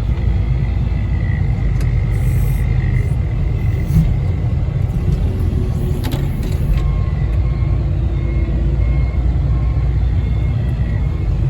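Engine of the snow-clearing machine with its bucket running steadily under load, a deep rumble with a faint steady whine above it and a small knock about four seconds in.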